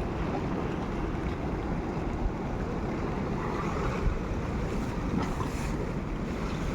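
Wind buffeting the microphone in a steady low rumble, with waves washing beneath it.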